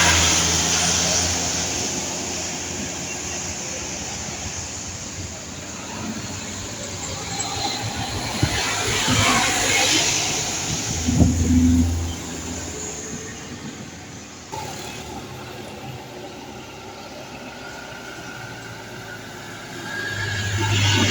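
Road traffic: vehicles driving past, with the loudest passing about halfway through.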